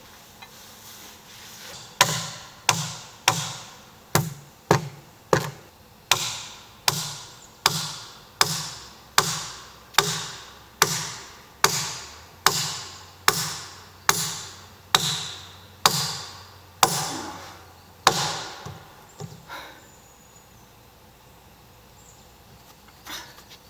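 A steady run of about twenty sharp, heavy blows of a tool on wood, about one every 0.7 seconds, each dying away quickly. It starts about two seconds in and stops after some sixteen seconds, followed by a few fainter knocks.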